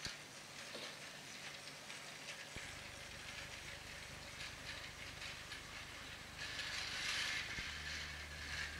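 Battery-powered Plarail toy train running on plastic spiral track: its small motor and gearbox running, with rapid, irregular clicking of the wheels over the track joints. The sound gets louder for about a second past the six-second mark.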